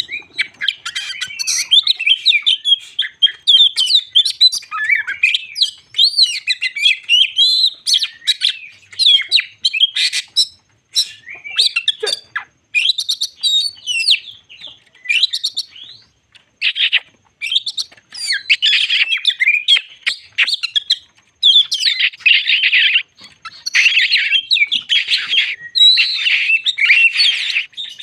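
Oriental magpie-robin (kacer) singing continuously: a long, varied song of whistled phrases and rapid chattering notes, broken by short pauses, with denser, harsher phrases in the second half.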